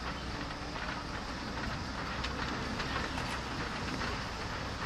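2-10-0 steam locomotive No. 90 working its train as it approaches, its exhaust and the train's running on the rails making a steady rumble.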